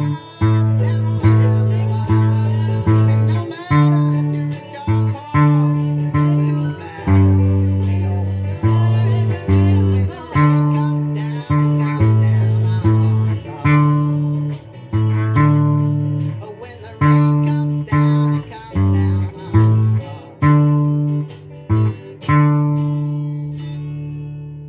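Octave ukulele tuned down to bass-guitar tuning (EADG), plucked in a steady run of low, bass-like notes. It ends on one long note that rings on and fades out.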